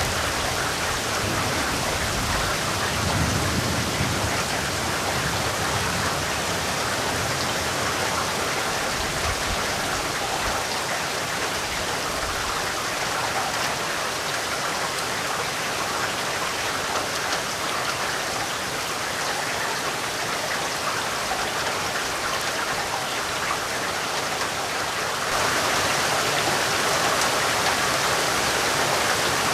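Steady heavy rain, with a low rumble of distant thunder fading in the first few seconds. The rain steps up suddenly in loudness near the end.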